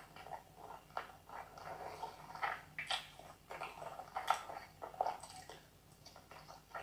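Close-miked mouth sounds of eating soft chicken drumstick meat and biryani rice: wet chewing, lip smacks and clicks at irregular intervals.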